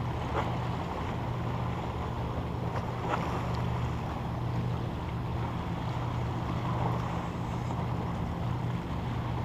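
Wind on the microphone and water moving around a kayak, over a steady low drone, with two faint taps about half a second and three seconds in.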